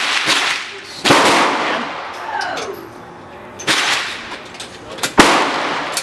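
Gunshots on a shooting range: four sharp reports at uneven intervals, each trailing off in an echo, the last one the loudest.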